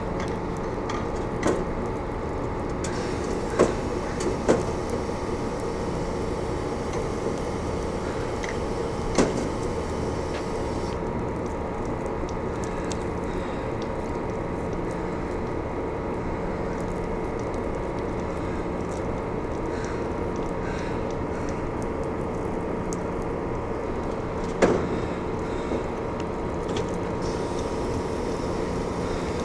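A steady mechanical drone with a constant hum, like a machine or engine running nearby, unchanging throughout. A few short sharp knocks stand out: two about four seconds in, one near nine seconds, and one near twenty-five seconds.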